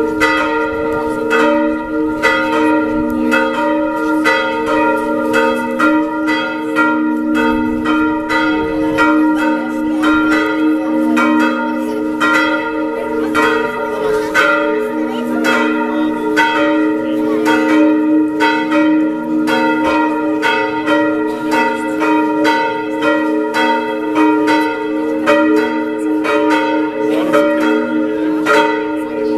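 Several church bells of different pitches ringing together, their strokes overlapping in a continuous peal.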